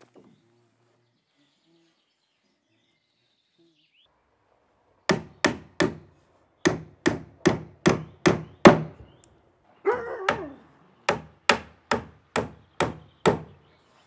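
Hammer striking wood, nailing a wooden batten onto the roof rafters. After about five seconds of quiet come runs of sharp blows, about two a second: three, then six, then six more, with a short, rougher sound between the last two runs.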